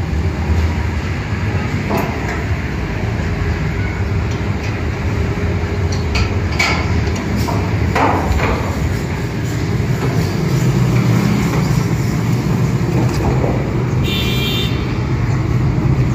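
Metal parts of a satellite dish's feed-arm and LNB-plate assembly handled and fitted, giving a few sharp clinks, over a steady low rumble. A short high squeak sounds near the end.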